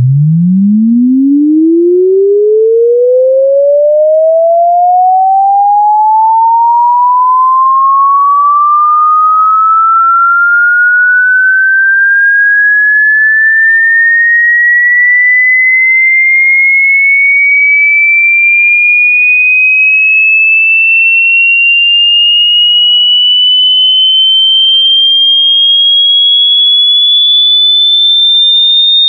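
A loud, single pure electronic sine tone sweeping steadily upward in pitch, from a low hum to a high-pitched whine. The rise is quick at first and then slows.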